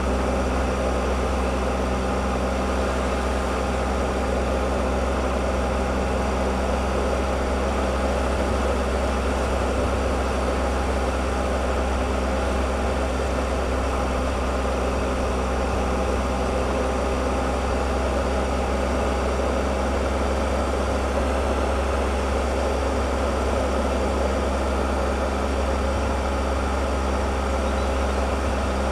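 Triumph Explorer motorcycle engine running at a steady, unchanging note, with no revving or gear changes.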